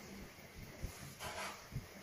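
Faint handling sounds of a gas soldering iron being turned over in the hand: a few light bumps and a short soft rustle about a second in.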